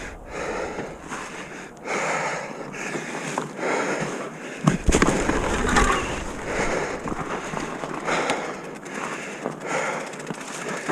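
A person breathing hard in repeated heavy breaths, with a sharp knock about halfway through.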